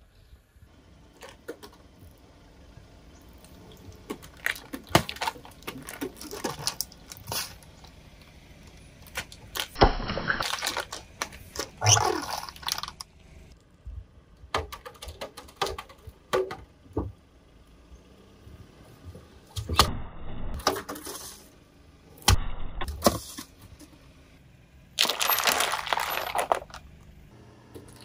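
Things being crushed under a car tyre: a series of cracks and crunches in several short takes that cut off suddenly one after another.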